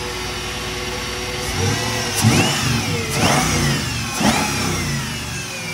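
Mercedes CLK55 AMG's 5.4-litre V8 idling, then blipped three times about a second apart, each rev rising and falling back, before it settles toward idle. It is breathing through a freshly fitted homemade 3.5-inch intake pipe with an open air filter.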